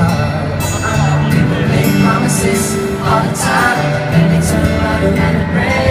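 Live pop music from an arena concert, recorded from the audience: a band playing a song with a singing voice over it and steady percussion.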